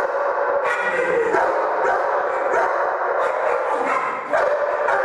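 German Shepherd barking repeatedly at a decoy holding a bite tug during protection training: a loud, steady run of barks, about one to two a second.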